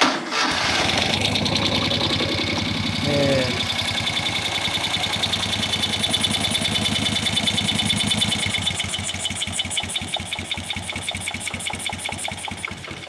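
1971 Moto Guzzi Ambassador's air-cooled V-twin catching and settling into a steady, evenly pulsing run, a little quieter over the last few seconds.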